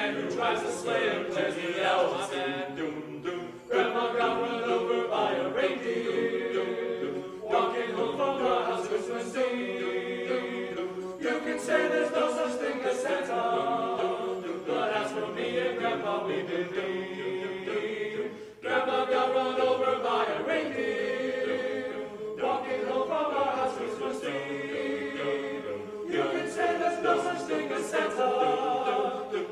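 Men's a cappella choir singing unaccompanied in parts. Held chords change every three to four seconds.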